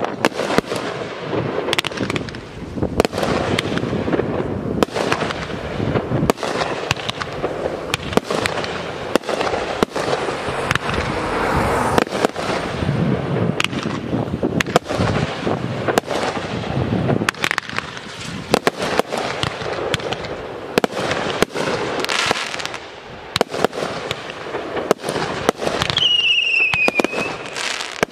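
Aerial fireworks display: a dense, continuous barrage of shell bursts and crackle with no pause. Near the end a short whistle falls in pitch.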